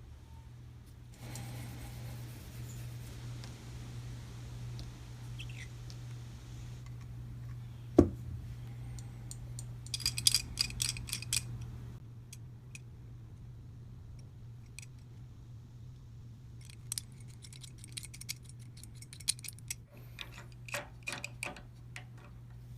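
Steel parts of an old adjustable bicycle wrench clicking and clinking as they are put together and the jaw is worked, in scattered groups of clicks, with one sharp knock about a third of the way in. A steady low hum runs underneath.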